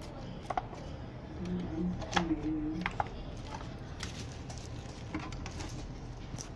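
Scattered clicks and light knocks as a car stereo head unit's metal chassis and plastic front panel are handled and fitted together.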